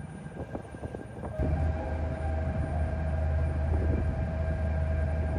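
Car ferry's engines droning steadily, a deep hum with a steady whine above it, growing louder about a second and a half in.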